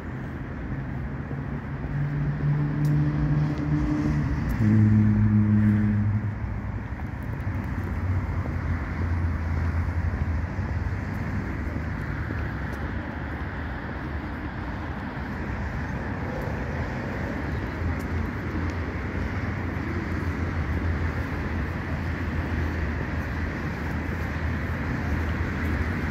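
Street traffic: a motor vehicle passes close about four to six seconds in, its engine note dropping in pitch as it goes by. A steady low traffic hum runs under it.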